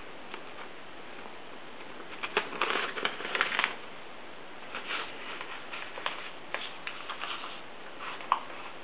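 Rustling and crinkling with light clicks in two spells, then one sharp click near the end: the sound of things being handled.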